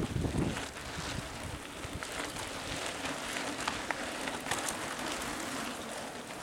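Mountain bike tyres crunching and crackling over a sandy, leaf-strewn forest trail as riders pass close by, with many small sharp clicks. Wind buffets the microphone at the very start and dies away within the first moment.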